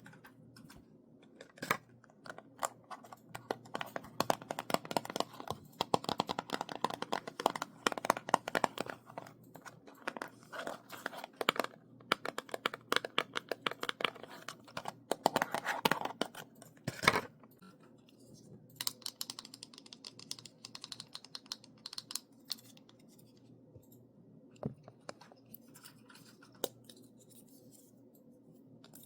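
Fingernail tapping and scratching on a small object: quick runs of crisp taps through the first half or so, then sparser, scattered taps.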